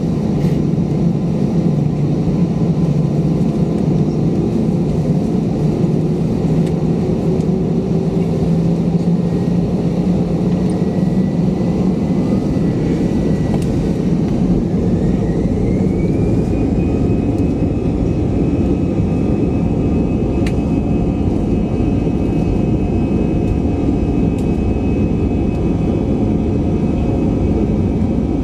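Airbus A320-200 jet engines running with a steady rumble; about halfway through, their whine climbs in pitch and then holds at the higher note, as the engines spool up.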